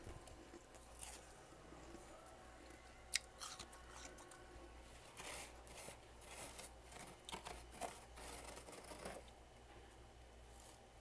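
Freezer frost crunching and crackling close to the microphone as it is bitten and chewed: one sharp snap about three seconds in, then bursts of crisp crunching from about five to nine seconds.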